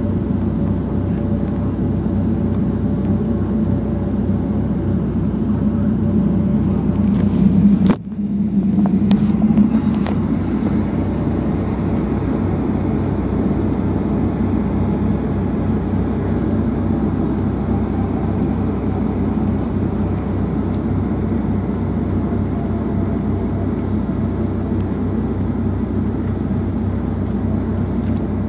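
Boeing 757-200 cabin noise during taxi: the jet engines running at low power under a steady low rumble and hum. About eight seconds in the sound briefly drops out, with a few faint clicks.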